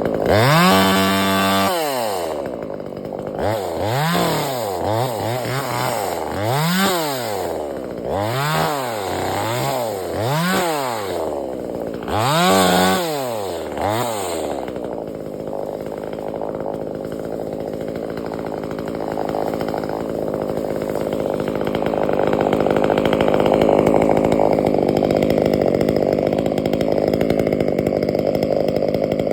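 Two-stroke chainsaw revved up and down about eight times in quick succession over the first half. It then runs at a steady high speed for the rest, rising a little in loudness near the end.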